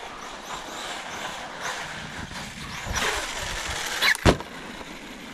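Electric RC monster truck running through wet snow: a whining motor rises and falls over a rushing haze of tyre and snow noise, then a loud thump about four seconds in.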